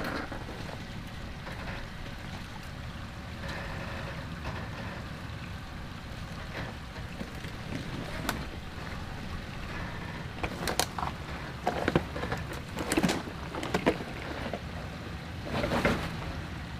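Toyota 4Runner crawling slowly over a rocky off-road obstacle: a steady low engine rumble, with a string of knocks and scrapes from the tires and underbody against rock and a tree in the second half.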